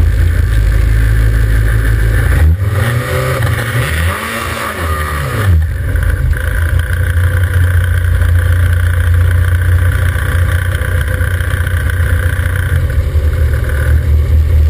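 Portable fire pump engine running hard at high revs with a loud, steady drone. About two and a half seconds in, the note swings up and back down over a few seconds, then runs steady again.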